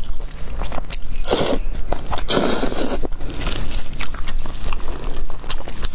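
Close-miked eating: biting and chewing with many sharp crunching clicks, and two longer crunches about one and a half and two and a half seconds in.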